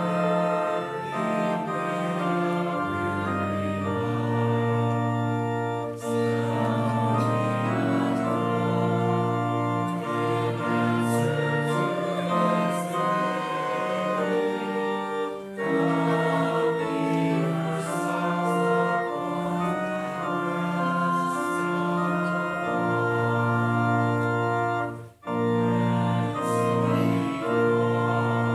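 Organ playing slow, sustained chords that change every second or two, with a brief break about 25 seconds in.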